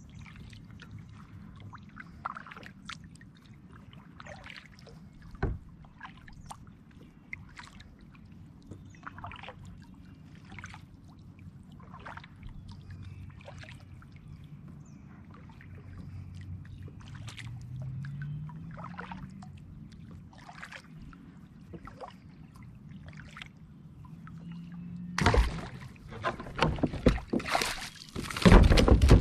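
Kayak paddle strokes in calm water, a short splash about once a second. Near the end comes a sudden loud burst of splashing and knocking, as a bass strikes a topwater lure at the bow and the kayak is jostled.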